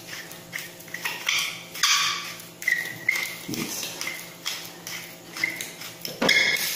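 Gloved fingers rubbing and crumbling seasoning over a dish of sliced vegetables: irregular short rustles with brief high squeaks of the gloves, and a louder rustle near the end.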